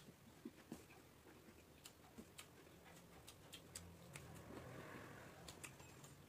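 Faint, scattered mouth clicks and chewing of a person eating rice by hand, over near silence.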